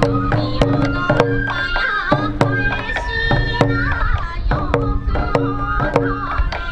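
Sansa odori festival music: taiko drums struck in a steady beat, about two to three strikes a second, under a bamboo flute playing an ornamented melody.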